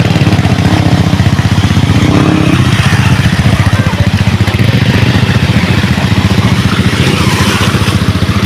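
Motorcycle engine running steadily, loud and close, with a fast even pulsing throb.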